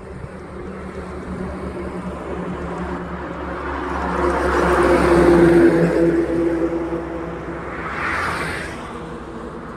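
Tata tanker truck driving past on the highway: its diesel engine drone and tyre noise swell as it approaches, loudest about halfway through, then fade. Near the end a car passes close by with a brief tyre whoosh.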